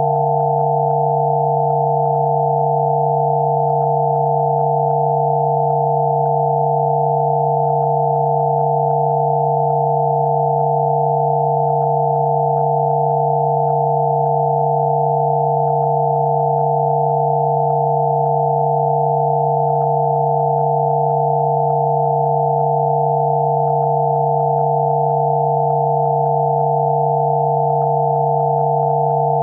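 Layered electronic sine tones of Rife frequency sound therapy: one low tone under a cluster of higher tones, all held perfectly steady at a constant level.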